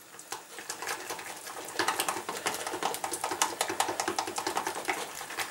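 A whisk working a thick sauce in a stainless-steel saucepan, its wires clicking against the pan several times a second in a quick steady rhythm that gets louder about two seconds in.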